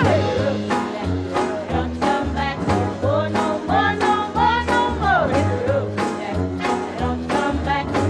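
Background music: an upbeat song with a steady beat, a bass line and a lead melody that slides up and down in pitch.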